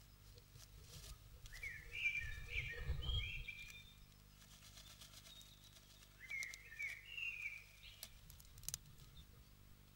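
A small songbird chirps in two short runs of quick, downward-sliding notes, the first about two seconds in and the second about six seconds in. In between comes a soft low rustle, and near the end a few faint clicks, as a female great tit shifts on her eggs in the moss nest.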